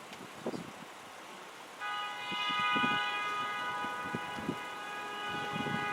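Locomotive air horn sounding one long, steady multi-note chord, starting about two seconds in and held without a break. Before it there is only faint background noise.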